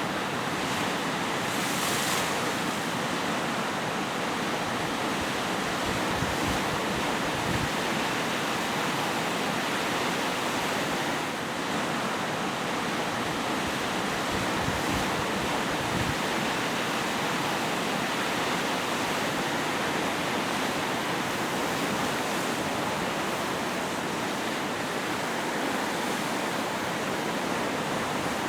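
Lake Ontario waves surging and washing ashore in a steady, unbroken rush of surf, with wind buffeting the microphone in a few brief low rumbles.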